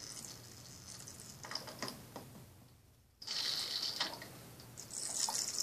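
Liquid from a small toy feeding bottle, held upside down to a Baby Alive doll's mouth, trickling in with small clicks and rattles from the bottle and doll. The flow turns suddenly louder about three seconds in.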